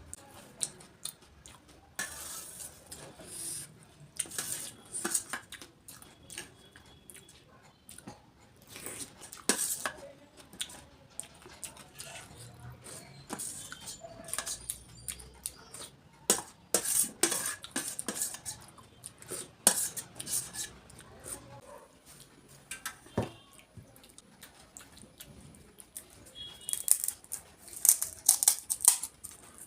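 Close-up eating sounds: crisp golgappa (pani puri) shells cracking and crunching as they are bitten and chewed, with irregular clinks of dishes and cutlery.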